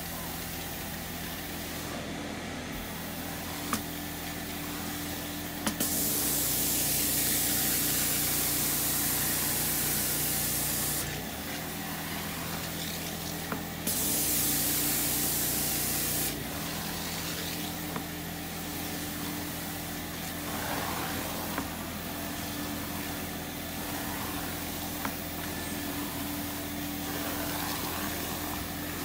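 Janilink carpet steam cleaner running steadily with its motor hum under the floor wand's suction, as the wand is drawn over carpet. Twice, about six seconds in and again near the middle, the wand sprays cleaning water with a loud hiss lasting a few seconds each.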